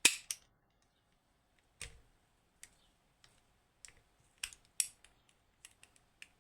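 Small metal parts of a dismantled lever lock clicking and clinking as they are handled and set down: about a dozen sharp, irregular clicks.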